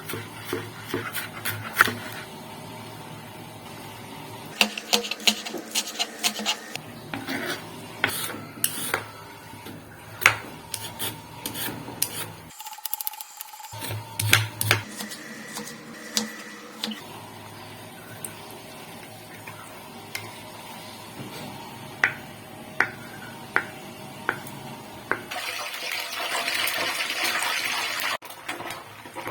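Kitchen utensils, dishes and cookware clinking and knocking at an irregular pace during cooking preparation, with a short stretch of running water near the end.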